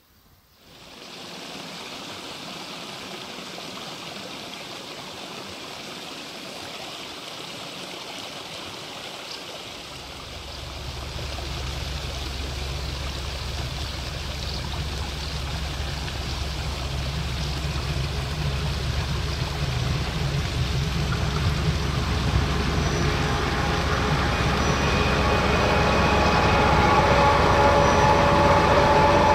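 Steady rushing of running water. From about ten seconds in, the low rumble of an approaching Czech class 754 diesel locomotive comes in and grows steadily louder, with a steady whine joining in over the last several seconds.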